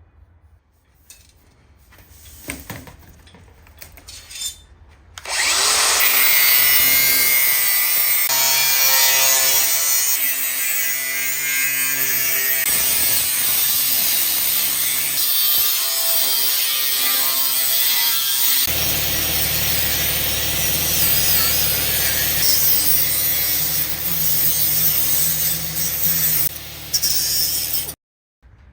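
A few faint handling knocks, then a power tool starts about five seconds in and runs steadily under load with a harsh, hissing cutting noise. Its note changes about two-thirds of the way through, and it cuts off abruptly near the end.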